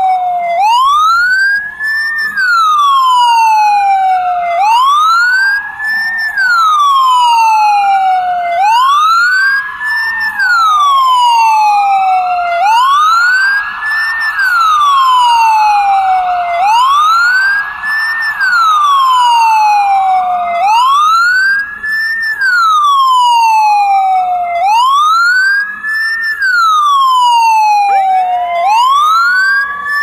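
Ambulance siren sounding a continuous wail: each cycle rises quickly in pitch, then falls slowly, repeating about every four seconds. A fainter second wail overlaps it out of step.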